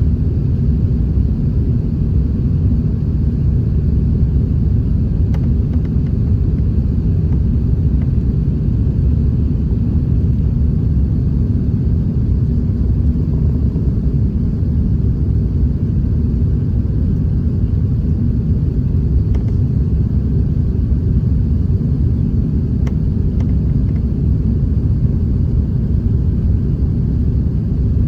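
Steady, loud low rumble of an Airbus A380's engines and rushing air, heard from inside the passenger cabin, holding constant throughout.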